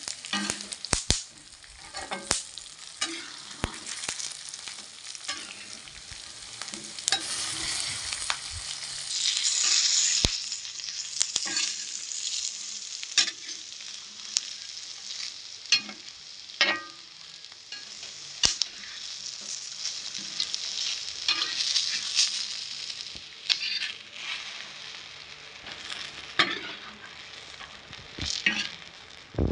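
Raw peanuts frying in oil in a wok with chillies, shallots and garlic: a steady sizzle, stirred with a spatula that scrapes and knocks on the pan in many sharp clicks. The sizzle is still going, so the peanuts are not yet done; they are fried until it dies away.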